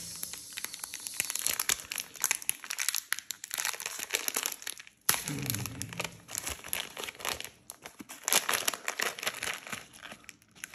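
Plastic wrapper of a Cadbury Shots chocolate packet crinkling and rustling as fingers twist and pull at it to tear it open, with a short pause about five seconds in.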